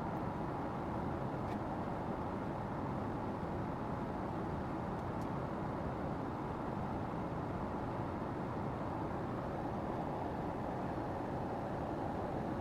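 Steady cabin noise of a Boeing 777-200ER airliner in cruise: an even rush of engine and airflow noise that does not change, with a couple of faint clicks.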